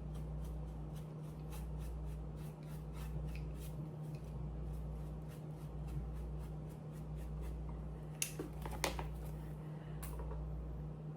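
Glazing putty being worked onto a 3D-printed helmet: a run of light scraping and ticking handling sounds, with a few sharper clicks near the end, over a steady low hum.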